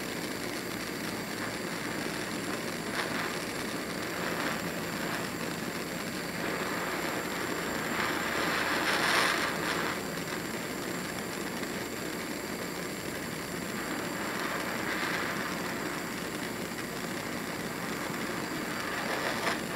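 Small handheld propane torch burning with a steady hiss, its flame held on a copper cable lug to heat it for soldering, swelling slightly about halfway through.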